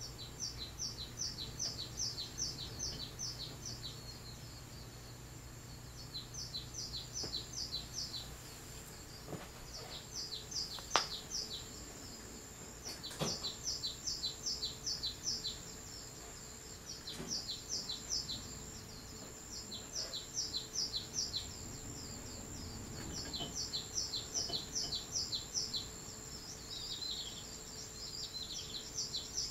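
Birdsong from a nature video playing on a television: a songbird repeating short phrases of quick, high chirps every few seconds. A faint steady high whine runs underneath, and there are two soft clicks in the middle.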